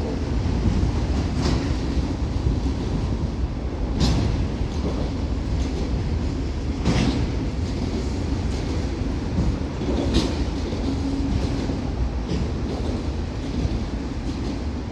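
Freight cars of a passing train rolling on the rails, a steady low rumble with a sharp click from the wheels about every three seconds.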